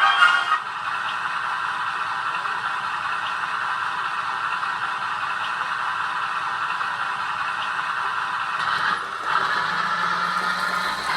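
1/6-scale Armortek Chieftain radio-controlled model tank running, a steady mechanical clatter and rattle from its tracks and drive. About nine seconds in the sound shifts and a low, steady engine-like hum joins in.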